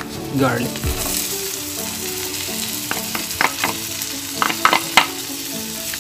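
Minced garlic sizzling as it drops into hot melted margarine in a frying pan: a steady frying hiss that builds in the first second, with a few sharp clicks near the middle and end.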